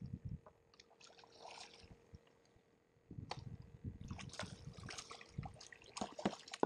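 Water splashing and slapping beside a kayak as a hooked redfish thrashes at the surface, starting about three seconds in, with many sharp irregular splashes.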